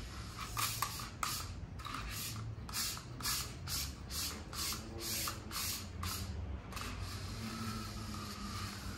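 Chinese diabolo being whipped on its string between two hand sticks: a run of about ten short, hissing rasps at roughly two a second, from the string running over the spinning spool's axle and the sticks sweeping, between about two and seven seconds in, with two similar strokes about a second in.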